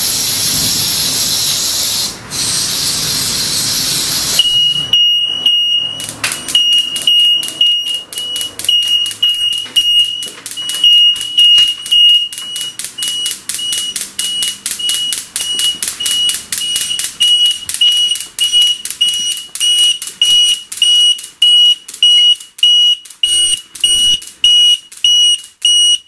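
An aerosol smoke-test spray hisses at a smoke detector for about four seconds, with a short break partway. The smoke alarm then goes off: a high-pitched tone, briefly steady, then rapid repeated beeping at about two or three beeps a second, set off by the test smoke.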